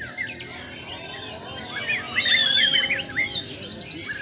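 White-rumped shamas singing in a rapid, varied run of whistles and chirps. The song is loudest about two seconds in, with a held high whistle, and a fast high trill comes near the end.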